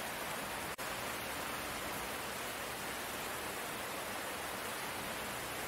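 Steady rain, an even hiss with no single drops standing out, which drops out for an instant about three-quarters of a second in.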